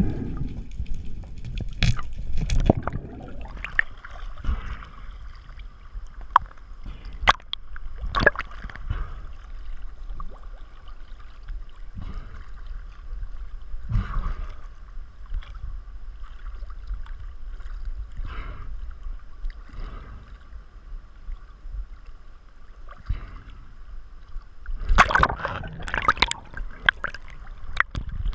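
Water sloshing and gurgling against a low rumble, with scattered clicks and knocks, and a burst of louder splashing near the end.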